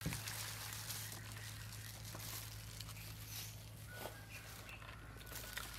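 Quiet room tone with a steady low hum and faint scattered ticks; no distinct sound event.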